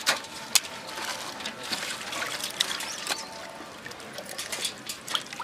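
Raw crabs being cleaned by hand over steel plates: irregular wet clicks and snaps of shells being pulled apart, over a steady trickling and dripping of water.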